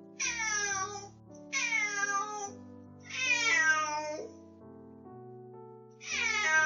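A house cat meowing loudly four times, each call long and falling in pitch, the third the longest, with soft background music underneath. It is the cat's agitated fuss on realising its owner is back after three days alone.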